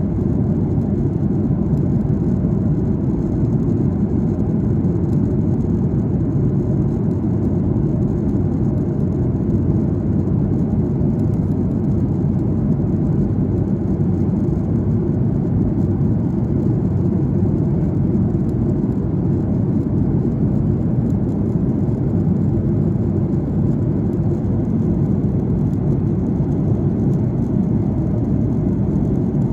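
Steady, low cabin noise of an airliner in descent, engine and airflow noise heard from inside the passenger cabin.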